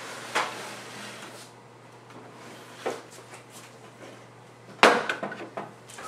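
Plastic Sylvanian Families dollhouse knocking and scraping on a wooden tabletop as it is turned and set in place. There is a light knock shortly in and a few faint clicks in the middle. The loudest knock comes about five seconds in, followed by a quick run of smaller knocks.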